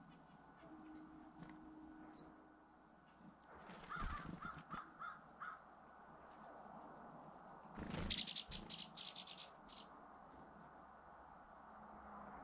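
Wild birds calling at the feeders. There is one sharp high note about two seconds in, a series of about five lower, harsher calls around four seconds in, and then a rapid run of about eight high chirps near the eight-second mark.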